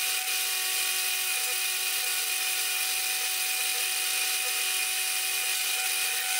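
Metal lathe turning while a boring bar cuts inside a bore to make a flat-bottomed hole: a steady high hiss of the cut over a constant whine from the machine.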